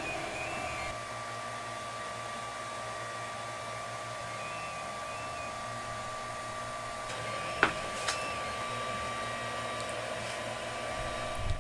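TronXY X5s 3D printer running a print: a steady whirr from its power supply and controller-board fan, which are louder than the quiet stepper motors. A few faint short stepped tones come and go, and two sharp clicks sound about half a second apart some eight seconds in.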